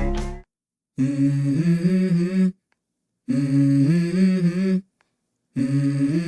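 Background music: the previous track cuts off, then a lone voice hums three short melodic phrases, each about a second and a half long, with silent gaps between them, as the opening of the next song.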